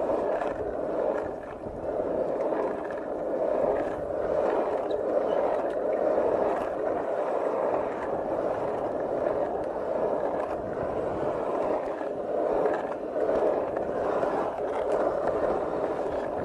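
Skateboard wheels rolling over asphalt: a steady rumble that rises and falls slightly in level, with occasional faint clicks.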